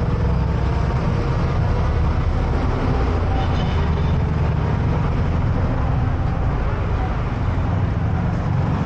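Riding a motor scooter along a road: a steady low rumble of the scooter's engine and the ride, with road traffic around.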